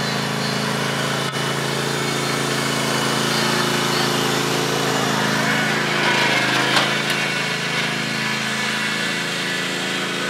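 John Deere LX277 riding lawn tractor's engine running steadily as it drives off, easing slightly near the end, with one short click about seven seconds in.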